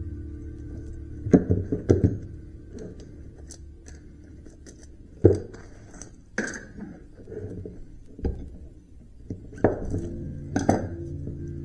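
Sharp metal knocks and clinks, about seven spread through the stretch, as copper windings are worked out of cut electric-motor stators. Background music with steady tones sits under them, fading early and coming back louder near the end.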